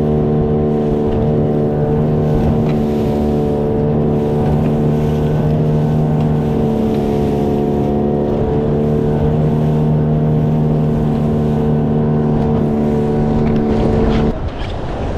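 Outboard motor pushing an inflatable boat along at steady cruising throttle, an even engine drone that holds one pitch. It cuts off abruptly near the end, leaving a wash of wind and water.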